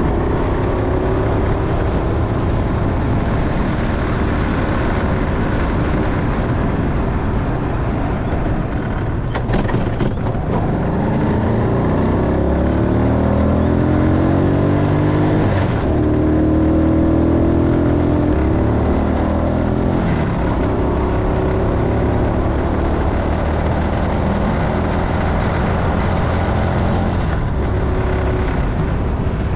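Motorcycle engine running under way with wind and road noise. About midway its pitch climbs as it accelerates, breaks off briefly as it changes gear, then runs steadily.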